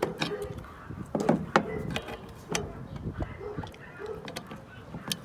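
Pliers and small steel brake parts clicking and knocking against a drum brake shoe and a plastic bed liner, several sharp irregular clicks, while a C-clip is worked onto the shoe.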